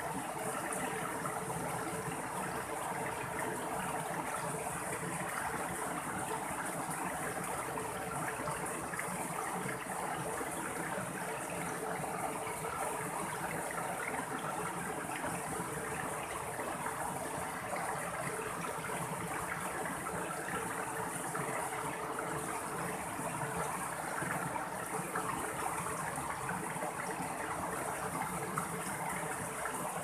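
Mountain stream running over rocks and small cascades: a steady rush of flowing, splashing water.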